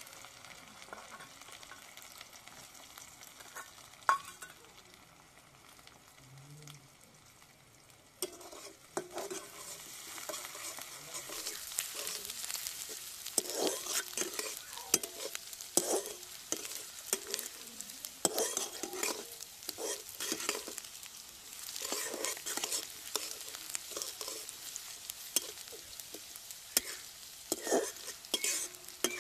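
Sliced red onions sizzling in oil in a metal kadai, with a metal spatula scraping and stirring them against the pan in repeated strokes. The frying is quieter at first and grows louder about a third of the way in.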